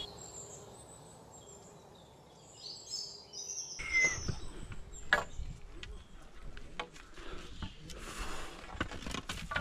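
Faint bird chirps in forest. About four seconds in the background changes suddenly, and scattered sharp knocks and taps follow, from footsteps and bamboo walking sticks striking rock steps.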